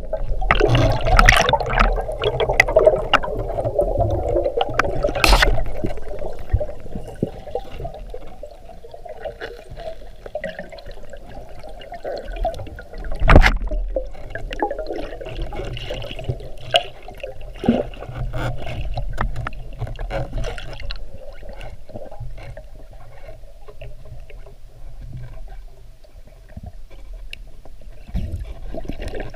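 Water gurgling and sloshing around the camera during a spearfishing dive, with a few sharp clicks, the loudest about five and thirteen seconds in.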